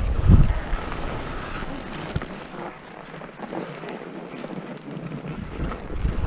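Wind buffeting the microphone of a skier moving downhill, with the hiss of skis sliding over snow. The low buffeting eases in the middle and picks up again near the end.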